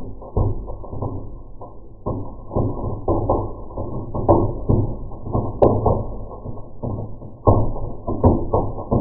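Fireplace firework fountain ('bee volcano') crackling and popping in dense, irregular bursts, slowed down so the pops sound deep and muffled. The loudest bunches of pops come a little past halfway and again about three-quarters of the way through.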